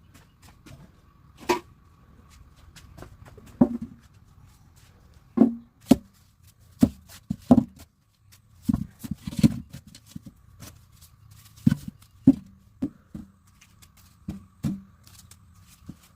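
A series of irregular knocks and thumps, about fifteen, spaced unevenly and some sharper than others, over a faint steady high hum.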